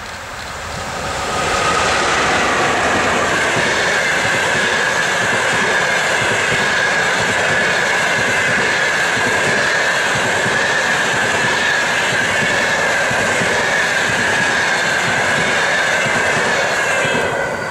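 An EP1M electric locomotive and its passenger coaches passing close by at speed. The noise builds over the first two seconds as the locomotive goes by. It then holds steady, with the wheels running on the rails and a steady high tone over them, and falls away near the end as the last coach clears.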